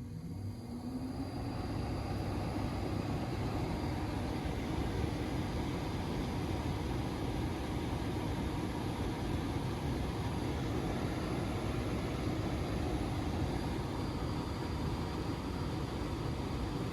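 A Trane split system's fan motor spinning up, its pitch rising over the first second or two, then running steadily with a constant rush of air.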